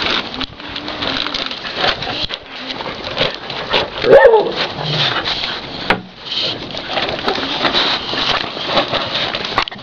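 Small dogs scuffling and rooting on dirt ground. One short dog yelp about four seconds in is the loudest sound.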